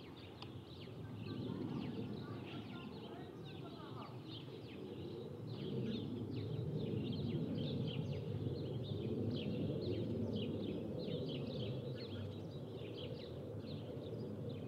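Distant jet airliner at cruising altitude, an Airbus A330-200, heard as a low steady rumble that swells a little a couple of seconds in and again around six seconds. Small birds chirp rapidly and repeatedly over it.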